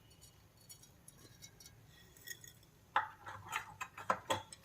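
Mustard seeds crackling and popping in hot oil in a pan: scattered faint ticks at first, then quicker, louder pops from about three seconds in as the seeds start to splutter.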